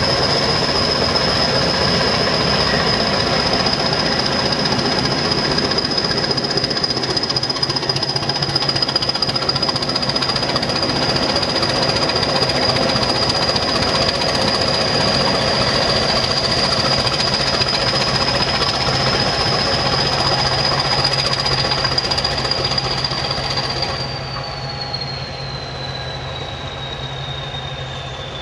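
Diesel-hauled train passing close and pulling away, a Class 20 and the shunter D0226 working on the rear. A loud, steady clatter of locomotive engines and wheels on the rails carries a high steady whistle. About 24 seconds in the sound eases and the whistle slides down in pitch.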